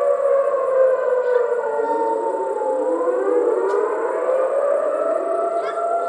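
Outdoor tornado warning sirens wailing, their pitch slowly falling and rising, with more than one siren sounding at once at different pitches.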